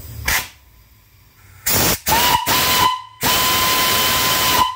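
Brass steam whistle on a fire-tube boiler, blown by a pull rope. After a couple of short rushes of steam hiss it sounds a shorter blast, then a longer held blast, each on one steady tone with loud steam hiss.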